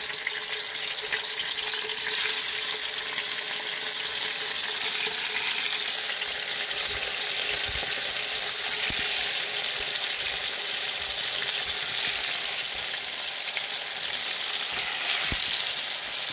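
Pieces of beef steak frying in hot oil with onion in a cazuela, a steady sizzle that shows the oil is well heated, with a couple of light knocks.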